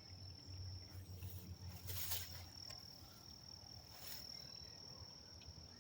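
Faint, steady, high-pitched insect drone, with two short rustles about two and four seconds in.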